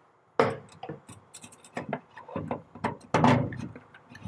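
Handling noise from an EMC+ cable with a copper shielding tube being fed into a control cabinet: a sharp knock about half a second in, scattered clicks and rubbing, and a longer scraping rustle about three seconds in.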